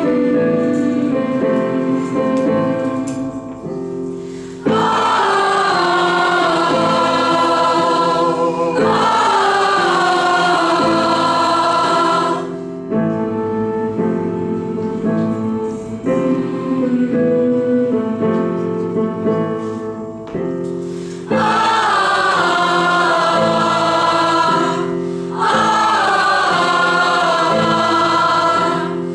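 Mixed youth choir singing with instrumental accompaniment. Loud choral phrases that fall in pitch come in four times, between quieter passages of held low chords.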